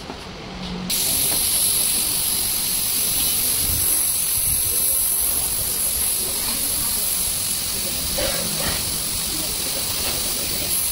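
Steady hiss of compressed air from a pneumatic air line, which starts abruptly about a second in.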